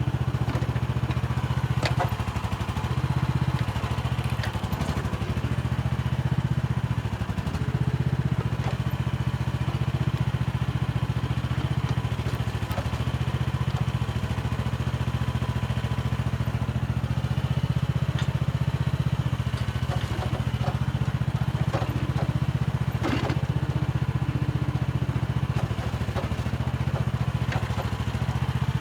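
Mini excavator engine running steadily under work, with a few scattered knocks and clanks from the machine, the loudest about 23 seconds in.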